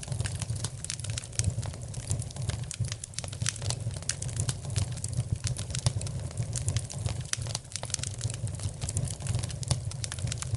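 Wood fire crackling in a fireplace: irregular sharp pops and snaps over a low, steady rumble of the flames.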